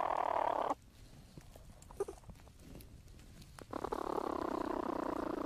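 Young platypuses in their nesting burrow making a buzzing, purr-like churring call: once, ending about 0.7 seconds in, and again for about two seconds near the end. A few faint scratches and clicks come in the quiet stretch between.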